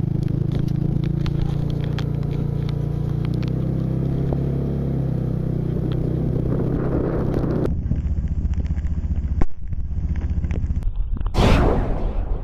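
Rain falling with scattered drop ticks over a steady low engine hum. The sound changes abruptly to a low rumble about eight seconds in, and near the end a vehicle swishes past.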